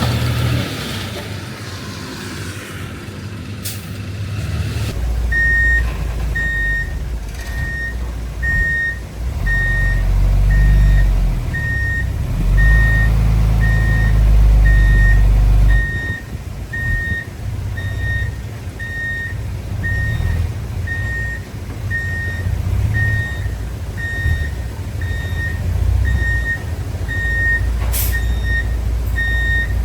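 Heavy diesel machinery with a low engine rumble that swells and eases; from about five seconds in, a reversing alarm beeps steadily about once a second. Near the end there is one sharp click.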